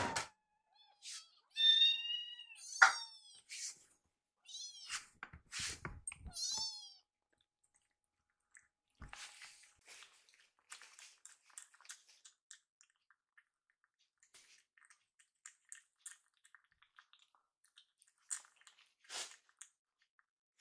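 Kittens meowing: high-pitched meows in the first several seconds, mixed with sharp clicks, then faint scattered ticking and clicking for the rest.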